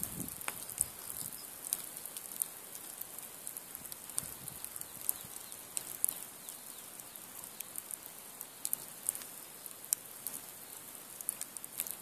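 Log fire of a nodya, long logs laid one on top of another, crackling, with irregular sharp snaps and pops over a faint steady hiss.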